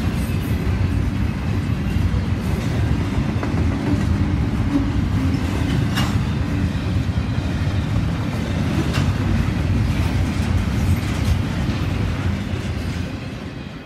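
Double-stack intermodal freight train's container well cars rolling past: a steady rumble of steel wheels on the rails with a few sharp clicks, fading near the end.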